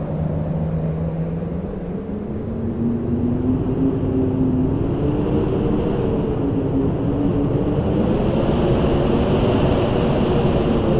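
Howling wind: a steady low rushing noise with several wavering howling tones that slowly rise in pitch, and a higher whistling hiss that builds from about halfway through.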